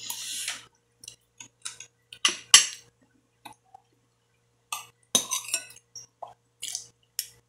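Metal spoon and fork clinking and scraping on a plate in short, separate strokes while scooping up rice, with chewing between them. The sharpest clinks come about two and a half and five seconds in.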